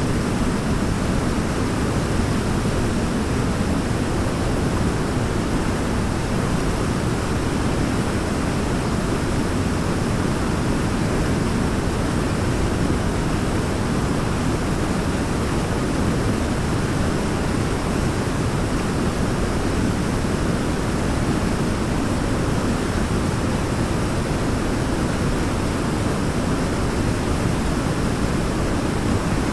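Waterfall: falling water rushing in a steady, unbroken roar with a deep low end.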